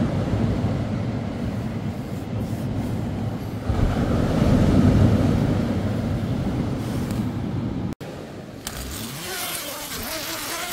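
Loud, deep wash of heavy surf breaking on the shore, swelling about four seconds in. It cuts off suddenly about eight seconds in, leaving quieter rustling.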